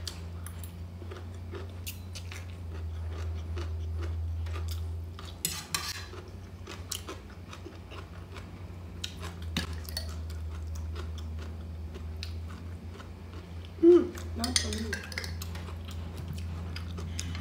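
A fork and spoon clinking and scraping on a ceramic plate as noodles are eaten, in scattered short clicks over a steady low hum. One louder knock comes about three-quarters of the way through.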